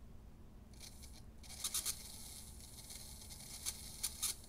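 Small open-frame DC motor of a vintage G12 model locomotive spinning under power from hand-held test leads: a high, hissing whir that starts about a second in and stops near the end, with a few sharp crackling clicks as the leads make and break contact. The motor runs when powered this way, so the motor itself works.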